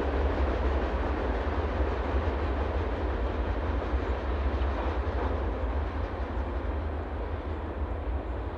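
Freight cars of a mixed manifest train rolling past: a steady noise of steel wheels on rail that slowly gets quieter near the end as the last cars move away.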